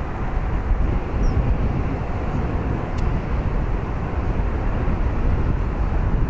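Strong wind buffeting the microphone in an uneven low rumble, over the steady roar of a Bombardier CRJ-700's jet engines on the runway.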